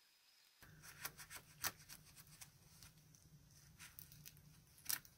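Metal palette knife working under a dried acrylic paintskin on a plastic sheet to loosen it: irregular sharp clicks and crackles over a faint low hum, starting about half a second in.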